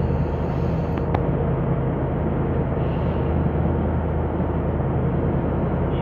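The yacht's engine running steadily, a low even drone. In the first second a faint short hiss of breath through a scuba regulator held to the mouth, ending with a click.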